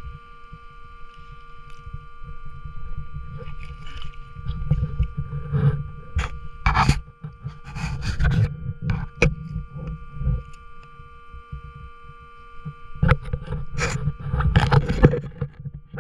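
Underwater handling of a wire-mesh catch basket full of fish: sharp knocks and scrapes of the mesh and catch, bunched in the middle and again near the end. They sit over a low rumble of water against the microphone and a steady thin whine.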